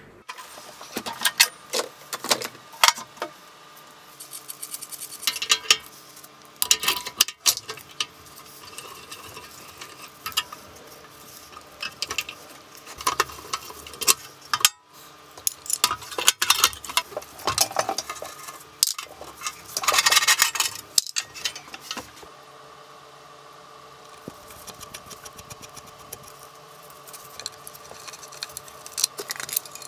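Irregular clinks, clicks and rattles of metal parts and hand tools being handled while a bench drill is taken apart, its cover, screws and switch parts knocking on the metal casting, with a denser clatter about two-thirds of the way through.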